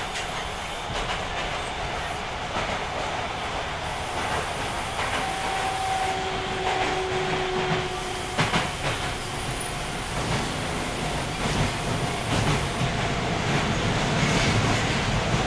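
Osaka Municipal Subway 66 series car running, heard from inside: wheels clacking over rail joints over a steady rumble. Faint steady tones from its Mitsubishi-built, Hitachi-designed GTO inverter come in and out, and one drifts slightly lower near the end.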